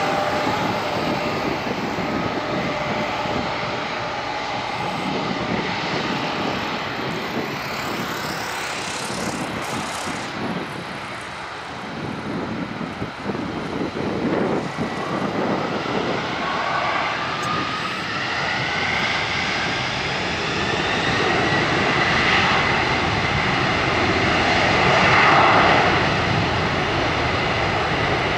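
Jet engines of a McDonnell Douglas MD-11F freighter running steadily while it taxis. In the second half a rising whine builds and peaks about 25 seconds in as the engines spool up, as for the takeoff roll.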